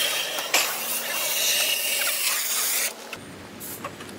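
Gas cutting torch hissing as its flame cuts into the steel of a safe, with a sharp pop about half a second in; the hiss stops abruptly about three seconds in.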